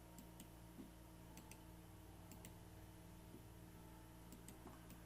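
Near silence: faint, irregular light clicks, roughly two a second, from small steel setup pieces (key stock and a clamp) being handled on a milling machine table, over a steady low electrical hum.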